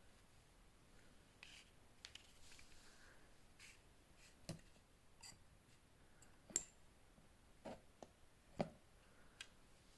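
Faint handling of packaging with a scattered run of small clicks and taps, the sharpest about six and a half seconds in, and light rustling between them.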